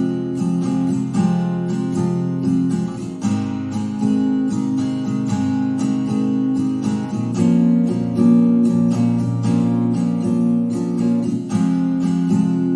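Acoustic guitar strumming chords in a steady, even rhythm, playing a song's accompaniment.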